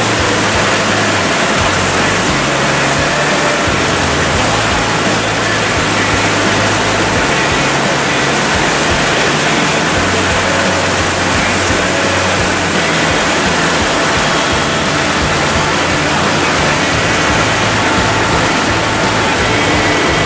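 John Deere combine running loud and steady while direct-cutting canola, a constant rushing noise with a low engine hum underneath that shifts now and then.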